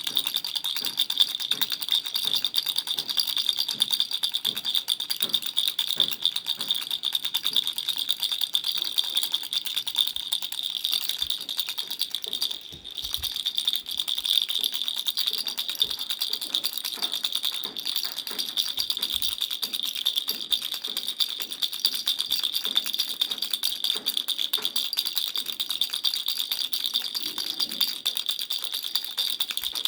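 Baby's toy rattle shaken continuously, a dense, bright rattling with a short break about thirteen seconds in.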